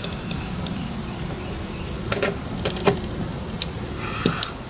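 A few light clicks and taps as a utility knife and a brass air-hose barb fitting are handled, over a steady low background rumble.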